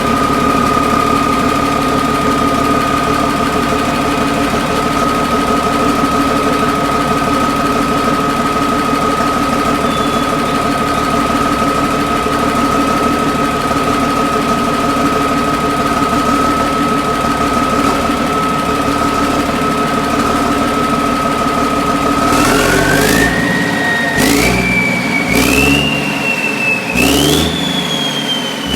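Cummins 500 hp diesel engine running at steady speed with a constant high whine over the engine drone. About three-quarters of the way in, the engine is revved up in several steps, the whine climbing in pitch with each step.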